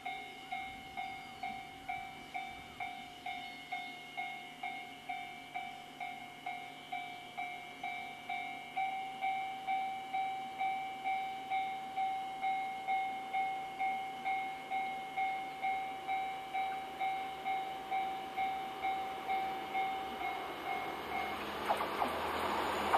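Railway level-crossing warning bell ringing in a steady pulse about twice a second. Near the end a JR Freight DF200 diesel locomotive hauling a freight train approaches, and its engine and wheel noise swell up over the bell.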